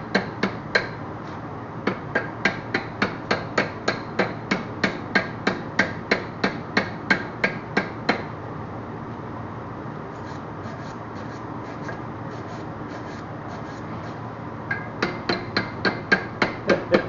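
Hammer rapidly tapping on steel, about three ringing strikes a second, in runs that pause briefly around the middle and pick up again near the end.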